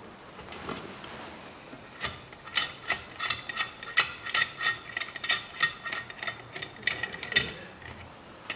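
Valve spring compressor being backed off a Toyota 3S-FE cylinder head's valve as the keepers seat: a run of quick, irregular metallic clicks with a slight ring, starting about two seconds in.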